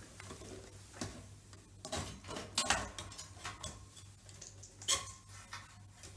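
Scattered clicks and light knocks of hard parts being handled as the power supply is eased out of the espresso machine's open frame, about half a dozen irregular taps.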